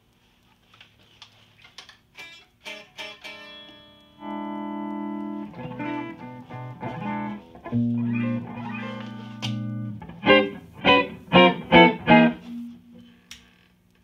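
Electric guitar played through an amplifier under tone test: a few picked notes, then held chords that ring on, then five loud strummed chords about two a second near the end.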